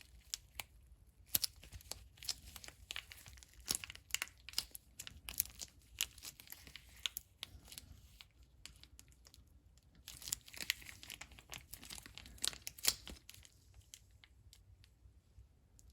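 Irregular crinkling and crackling, with many short sharp clicks, from hands fitting a rubber-coated shim onto the back plate of a brake pad.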